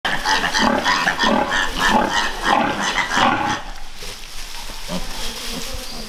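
Piglets making a rapid run of short squeaks and grunts, about five a second, for the first three and a half seconds, then quieter rustling in straw.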